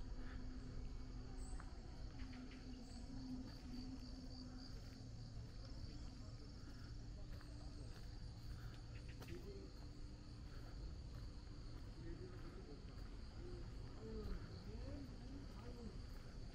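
Insects trilling steadily at one high, even pitch over a low, steady background rumble.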